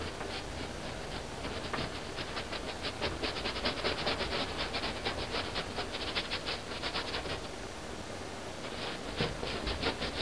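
Paintbrush working acrylic paint on canvas in rapid short strokes, several a second; the strokes pause about seven seconds in and start again near the end. A steady hiss runs underneath.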